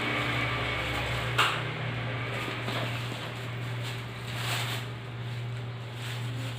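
A steady low hum, with one sharp knock about a second and a half in and a brief soft hiss near two-thirds of the way through.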